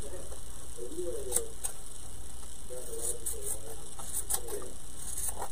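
Small scissors trimming excess fabric from the edge of a glued wooden cutout: a few scattered, sharp, light snips.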